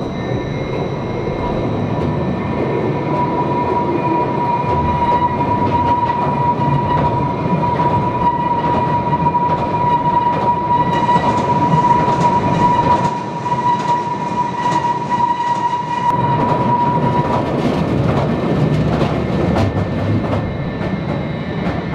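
Rail-Veyor train of electrically driven two-wheeled ore cars running along its light-rail track in a mine tunnel: a steady rumble with a high whine that stops about three-quarters of the way through, and sharp wheel clicks over the track that grow busier in the second half.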